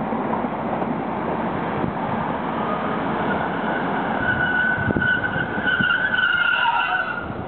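A WLE diesel locomotive rolls slowly past with its engine running. About three seconds in, a high metallic squeal from the running gear sets in and holds, then stops abruptly shortly before the end.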